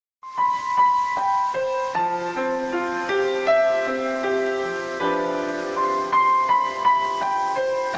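Piano playing a gentle melody that starts abruptly out of silence, single notes at first, with lower chords joining about two seconds in.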